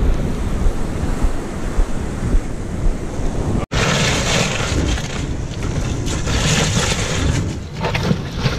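Wind buffeting the microphone over breaking surf. About three and a half seconds in it cuts off abruptly to a dense rattling and crunching of crushed ice as a freshly caught dart is pushed into the ice in a foam cooler.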